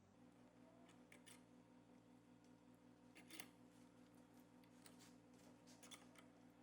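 Near silence: a faint steady hum with a few faint, scattered small clicks.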